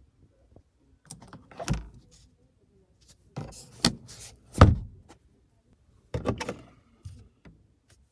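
A run of short plastic knocks and clicks from a 2020 Honda Accord's interior trim being handled: the sun visor swung down and its vanity-mirror cover worked, then the overhead sunglasses holder. There are about five separate clusters, and the sharpest knock comes a little past halfway.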